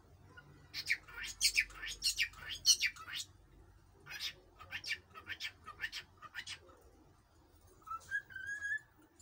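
Cockatiel chattering in two runs of short, sharp chirps, then a held whistle that rises slightly near the end.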